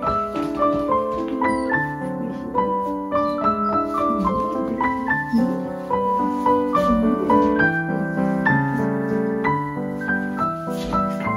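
Background piano music: a melody of single notes moving over lower held notes.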